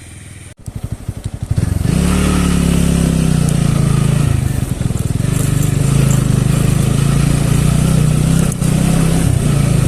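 Motorcycle engine pulling away: quiet and pulsing at first, it picks up over about a second, then runs loud and steady with small rises and dips.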